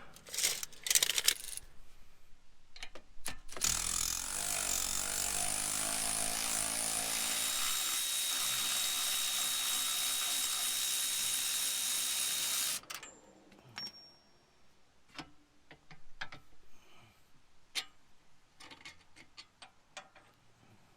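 A handheld power tool runs steadily for about nine seconds, starting a few seconds in and cutting off abruptly. Scattered metallic clicks and knocks of tools and parts being handled come before and after it.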